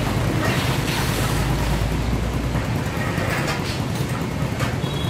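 Steady low vehicle rumble with outdoor street noise; the deepest part of the rumble drops away about two and a half seconds in.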